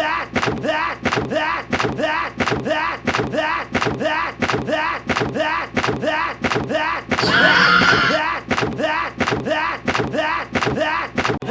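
A short sound with a voice-like pitch, repeated over and over at an even pace of about two and a half times a second, each repeat starting with a knock. About seven seconds in, a brighter, louder stretch lasts for about a second.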